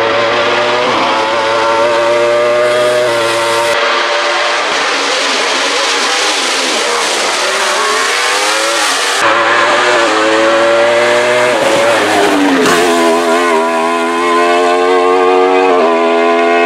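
Wolf GB08 Thunder sports-prototype race car's engine revving hard under full throttle, its pitch climbing and dropping with each gear change as it passes. The sound jumps abruptly several times where separate passes are cut together.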